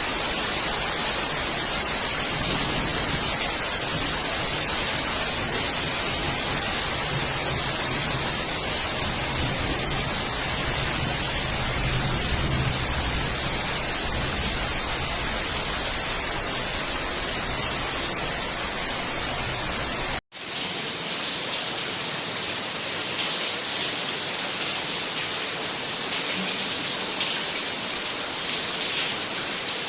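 Steady rain falling. About two-thirds of the way through there is an abrupt cut, after which the rain sounds lighter in the low end, with separate drops pattering.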